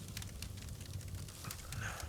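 Campfire crackling with frequent sharp pops over a low rumble, and a brief pitched sound near the end.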